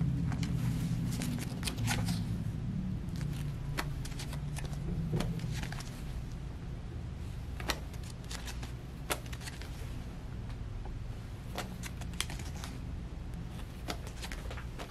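Cotton dog bandanas being shuffled and laid down by hand on a towel-covered table: soft fabric rustling with scattered light taps and clicks from their tags.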